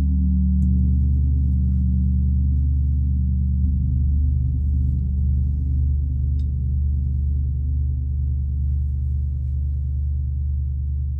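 Gong played with a big fake-fur-covered mallet: a deep, soft and full ringing hum with almost no bright overtones, freshly swelled by soft strokes about half a second and three and a half seconds in.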